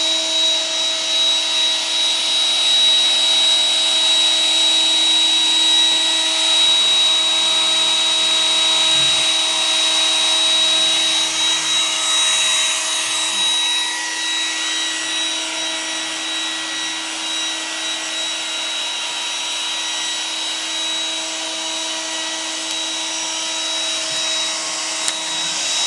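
iRobot Roomba 980 robot vacuum running: a steady motor whine with several fixed tones over a hiss of suction and brushes, a little quieter from about halfway through.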